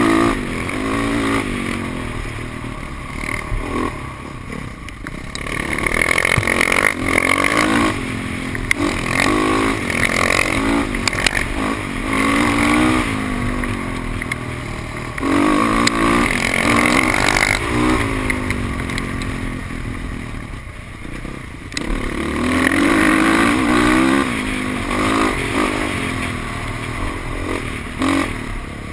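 Dirt bike engine under way on a dirt trail, its pitch rising and falling again and again as the rider opens and closes the throttle. Heard close from the rider's helmet.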